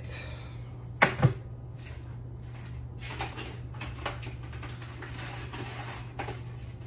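Two quick, sharp clacks about a second in, then lighter clattering and handling noises, over a steady low hum.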